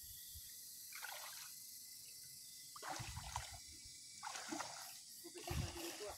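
A person moving through shallow muddy swamp water, with about four short splashes and sloshes as the water is stirred. A steady high hiss runs behind.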